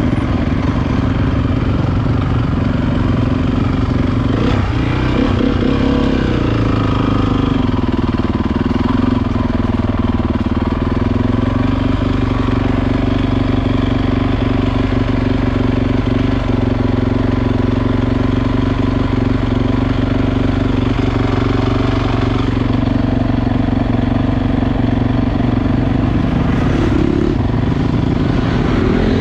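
Motocross motorcycle engines running loudly and steadily, with a shift in engine pitch about five seconds in and again near the end.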